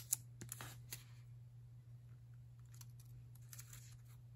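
A few sharp little clicks in the first second, then faint light rustling and tapping: a wristwatch being handled and taken off its display cushion.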